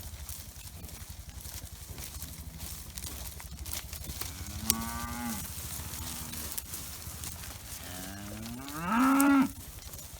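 Cows mooing: a fainter moo about halfway through, then a louder, longer one near the end.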